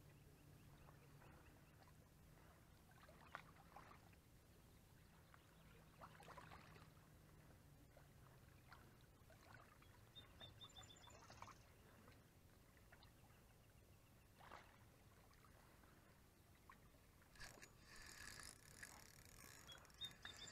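Mostly near silence with faint scattered ticks. About three seconds before the end, louder rustling and clicking begins as a hand handles the Shimano Sahara spinning reel close to the microphone.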